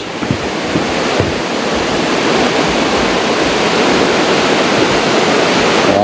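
Rushing water of a small waterfall cascading down a stone channel, a steady roar that grows gradually louder. A few knocks near the start are footsteps on wooden steps.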